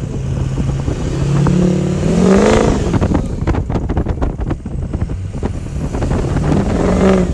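Motor vehicle engine running in snowy conditions, its pitch rising and falling twice as it is revved. Between the revs come a rapid run of knocks and clicks, over a constant low rumble.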